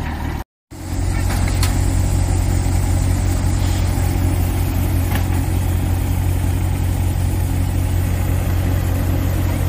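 Tractor-driven paddy thresher running: the tractor's diesel engine drones steadily under load, turning the thresher through a shaft from its pulley. The sound drops out for a moment about half a second in, then the same steady drone carries on.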